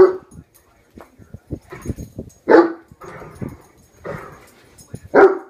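A young Great Dane barking in single loud barks, about one every two and a half seconds, with softer barks between them and a few short taps in the gaps. He is worked up at a hairbrush on the floor.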